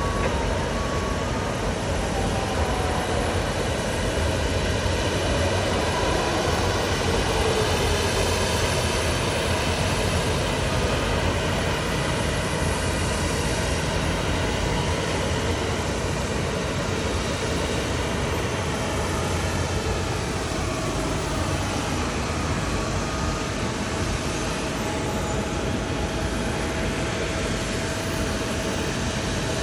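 Jet airliner passing close by, its engines making a loud, steady rushing noise with whining tones; one whine slides down in pitch partway through as the aircraft goes past.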